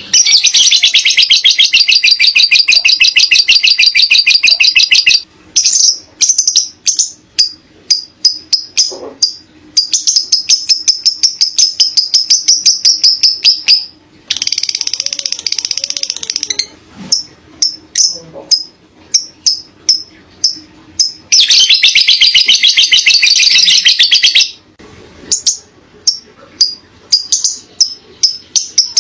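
Lovebird ngekek: long, very rapid high-pitched chattering trills of three to five seconds each, several times over, with runs of short separate chirps between them.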